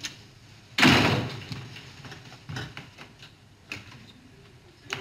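A door shutting with a sharp, loud bang about a second in, followed by a few faint knocks.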